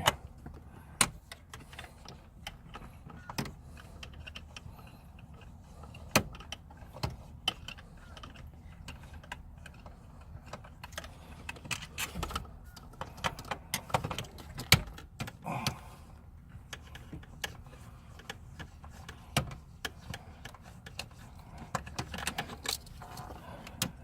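Scattered metallic clicks, clinks and knocks of hand tools and small parts, some in quick clusters, as the four screws holding a short-shifter assembly are taken out of the car's centre console.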